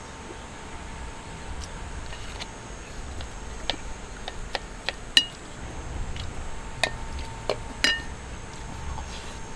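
Scattered light clicks and clinks of small hard objects being handled, about ten in all, a few with a short ringing tone, over a faint low rumble.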